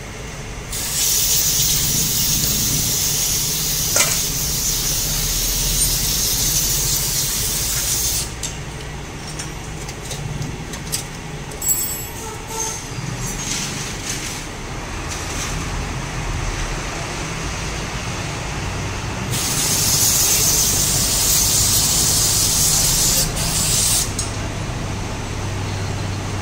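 Aerosol spray cleaner hissing in two long bursts, the first about seven seconds and the second about four and a half seconds, with small metallic clicks and taps between them.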